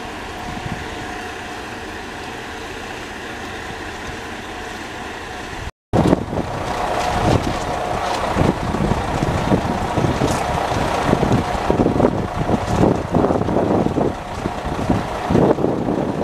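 Steady hum of an idling diesel rail vehicle with a faint whine. After a cut about six seconds in, gusty wind buffets the microphone over the engine hum.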